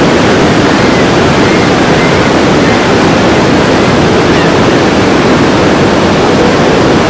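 Loud, steady roar of Niagara Falls whitewater crashing and churning over rocks at the base of the falls.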